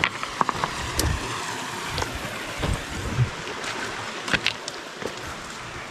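A stream running steadily over rocks, with footsteps and the odd knock of boots on stones.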